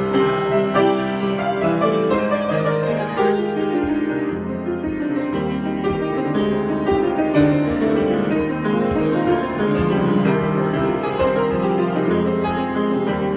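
Improvised piano playing: flowing runs and held chords with many notes ringing over one another, a little softer in the second half.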